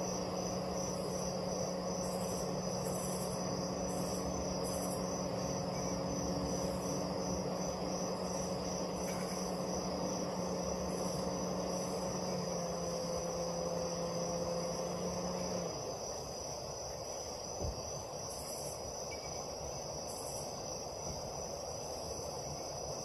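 Crickets chirping steadily in a fast, pulsing trill, with a steady low hum under them that stops about two-thirds of the way through. A single short knock follows soon after.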